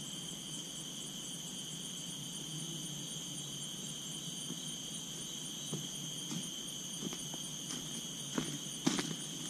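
Steady insect chorus of several high, unbroken tones in tropical rainforest. From about six seconds in, footsteps on dry fallen leaves come in and grow louder toward the end as a walker approaches.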